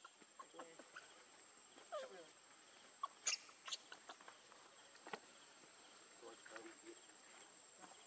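Faint, sparse monkey sounds: a short call falling in pitch about two seconds in, a few brief high squeaks and light clicks, and a couple of short wavering calls later on.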